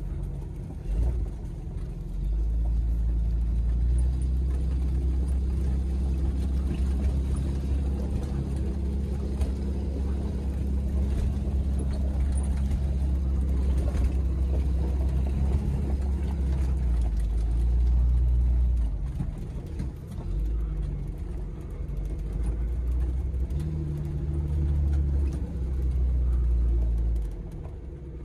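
1994 Geo Tracker's four-cylinder engine pulling the small 4x4 slowly up a rough dirt trail, a steady low hum that swells and eases off several times with the throttle.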